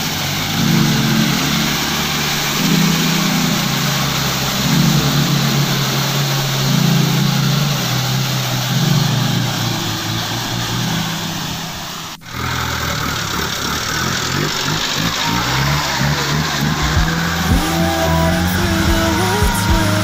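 Four-wheel-drive vehicle's engine running while driving off-road, its pitch rising and falling, under a loud, steady rushing noise. The sound drops out for an instant about twelve seconds in, then carries on.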